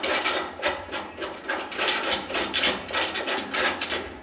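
Hand ratchet wrench clicking and rasping in quick repeated strokes as a bolt holding a foothold to the truck is tightened down.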